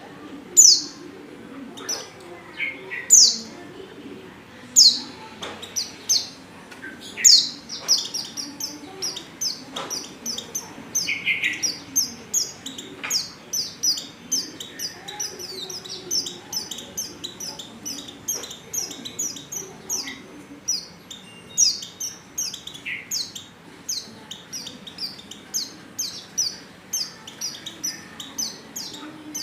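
Female white-eye (pleci) calling: short, high, downward-sliding chirps, a few loud ones spaced apart at first, then a fast, steady stream from about eight seconds in. This is the female call played as a lure to set male white-eyes singing.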